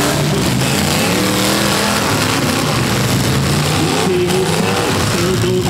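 Several V8 demolition derby cars' engines running and revving at once, their pitches rising and falling over one another, loud.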